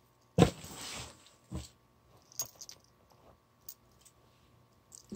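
Handling noise as a cat is pushed away from the phone: a sharp knock with a short rustle about half a second in, a second knock about a second later, then faint scattered clicks and jingles.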